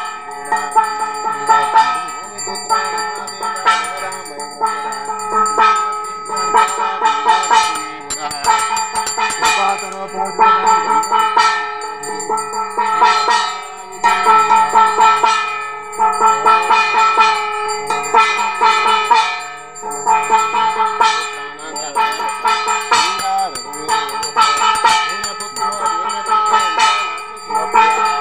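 Music: a held drone under a wavering melody, with regular percussion strikes about once a second.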